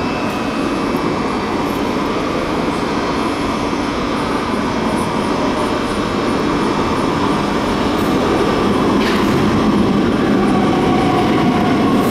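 New York City Subway R160 train standing at an underground platform, its equipment making a steady mechanical noise. A short sharp sound comes about nine seconds in, and near the end a faint steady whine joins as the sound grows a little louder.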